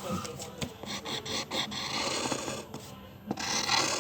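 Drawing tool rubbing and scratching across paper in irregular strokes, with the loudest strokes near the end.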